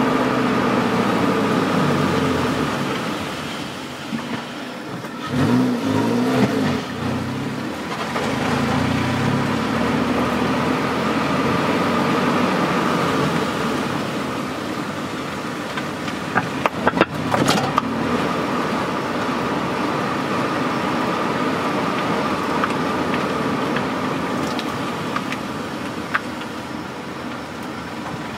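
Car exhaust recorded right at the tailpipe while driving at low speed, the engine note rising and falling with throttle. A cluster of short, sharp knocks comes about two-thirds of the way through.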